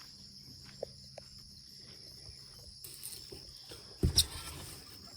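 Crickets chirping in a steady high chorus, with a few faint taps and a louder thump about four seconds in.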